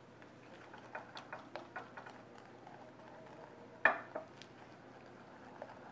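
Wooden spoon beating a thick peanut butter, sugar, oil and egg mixture in a ceramic bowl: irregular light taps and clicks of the spoon against the bowl, with one sharper knock a little under four seconds in.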